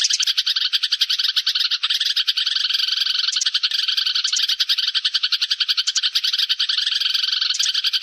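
A flock of sparrows chattering in rapid, overlapping chirps with no break. This is a sparrow flock-calling lure recording of the kind played to draw sparrows in for trapping.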